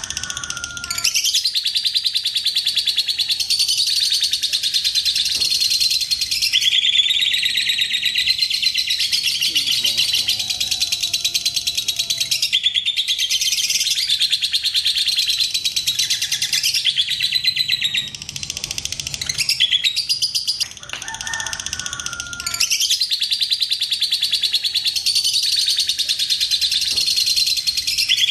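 Fischer's lovebirds chattering in the long, fast 'ngekek' song: runs of several seconds of rapid, high-pitched notes, broken by a few short pauses.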